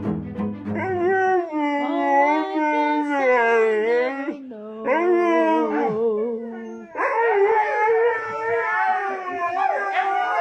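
Dog howling in long, wavering drawn-out notes, with short breaks between howls, over music.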